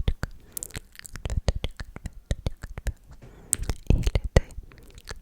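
Close-miked ASMR mouth sounds: quick, irregular wet clicks and smacks with some breathy hiss between them.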